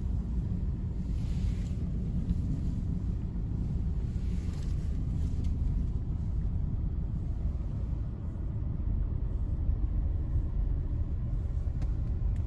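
Subaru Forester SG5's flat-four boxer engine running steadily, freshly started on a cold morning, heard as a low rumble from inside the cabin.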